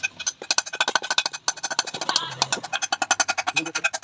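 Ratchet spanner clicking rapidly in short bursts with metallic ringing, tightening the bolt of the camshaft timing-chain sprocket on a Honda Shine engine.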